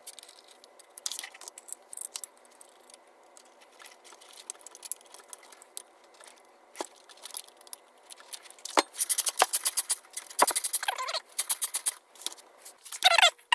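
Fast-forwarded, sped-up clicks and rattles of small metal parts and tools being handled during reassembly of a chainsaw engine, growing into a quick run of ticking about two-thirds of the way through.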